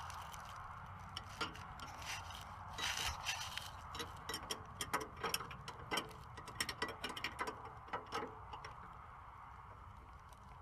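Steel spanner wrenches clinking and scraping on the threaded lock rings of a coilover as the spring-perch rings are tightened against each other: a run of irregular sharp metal clicks that stops near the end.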